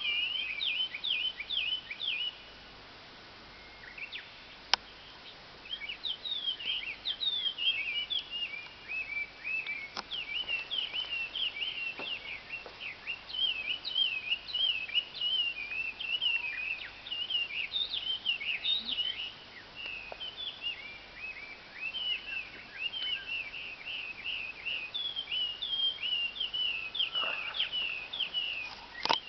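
Small birds chattering in quick runs of short, high chirps and twitters that overlap, as if calling back and forth. The chatter pauses for a few seconds early on, with a single sharp click during the pause.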